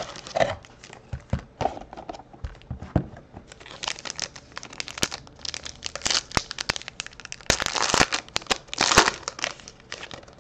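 Foil wrapper of a Panini Cornerstones basketball card pack crinkled and torn open by hand after being worked out of its cardboard box. Scattered crackles at first, then dense crinkling and tearing from about four seconds in, loudest near the end.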